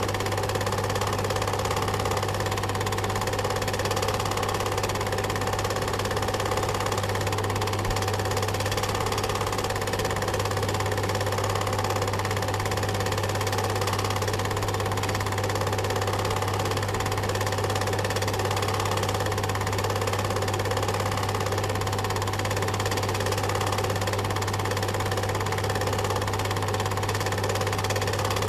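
Film projector running: a steady motor hum with a fast, even mechanical clatter, unchanging throughout.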